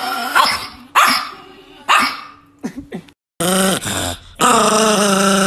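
Chihuahua growling and giving four sharp, snapping barks about a second apart. After a short break, a man's voice starts a long, loud, steady yell about four and a half seconds in.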